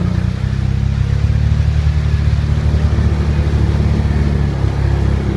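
A vehicle engine running steadily, a low even hum that holds its pitch.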